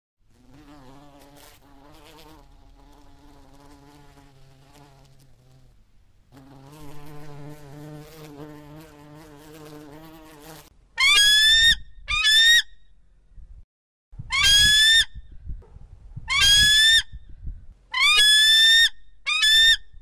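A bee buzzing with a steady low hum in two stretches, broken by a short pause about six seconds in. After about eleven seconds come six loud, high whistled calls, each sliding up at the start and then holding, from a bald eagle.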